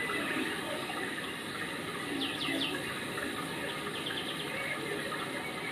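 Steady rushing background noise, like running water, with a few short bird chirps about two seconds in and fainter ones near four seconds.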